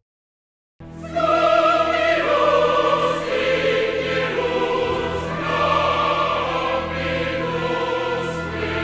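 Brief silence, then choral music starts about a second in: a choir singing long, sustained notes.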